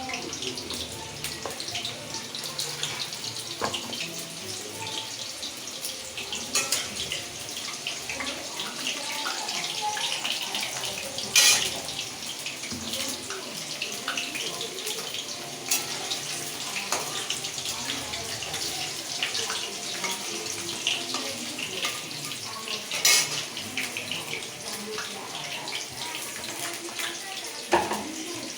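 Potato pieces shallow-frying in hot oil in a kadai: a steady crackling sizzle full of small pops, with a few sharp knocks against the pan.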